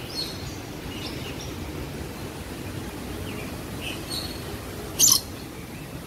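Scattered short, high bird chirps and calls in an aviary over a steady background hiss, with one loud, sharp, harsh sound about five seconds in.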